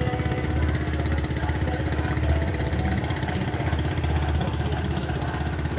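Small motorboat engine running steadily with a rapid, even chugging.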